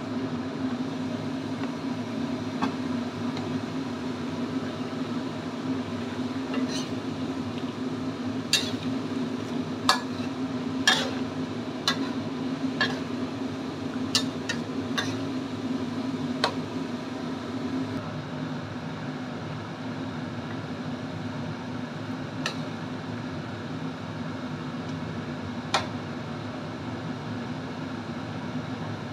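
A metal spatula clinking and scraping against a metal wok as a chicken broth is stirred, in scattered sharp knocks, most of them in the first half. Under it runs a steady low hum.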